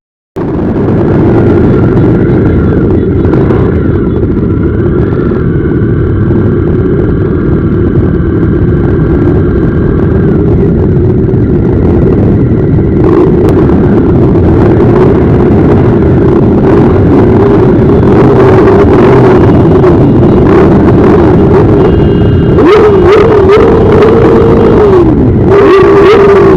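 Many motorcycle engines running together in a loud, continuous roar with some revving, starting abruptly. Near the end a tone sweeps up and down over and over.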